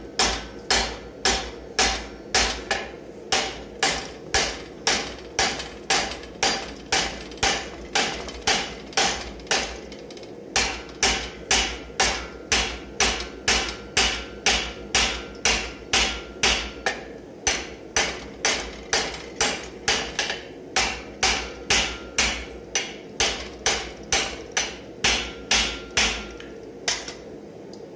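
Hand hammer striking a red-hot metal bar clamped upright in a bench vise: a steady run of blows about two a second, with a short break about ten seconds in, stopping shortly before the end. The hot metal is being forged down over the vise jaws to draw it to a point.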